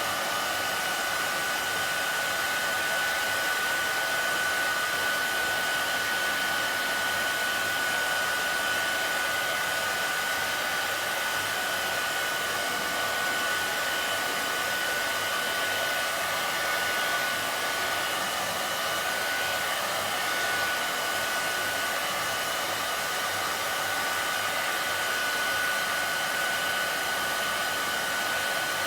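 Hairdryer running steadily: an even rush of air with a thin, steady whine above it.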